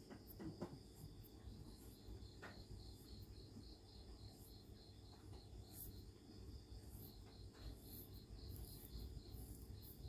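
Near silence with a faint cricket chirping steadily in the background, an even pulsing trill, and a few soft clicks.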